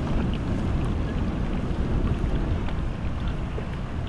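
Wind rumbling on the microphone over the low, steady noise of boats on the water, with a few faint ticks.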